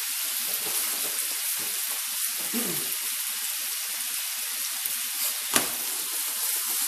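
A sauce of fruit preserves, lemon and garlic sizzling steadily in a skillet as it caramelizes, just after fresh lemon juice has gone in. There is a single sharp click about five and a half seconds in.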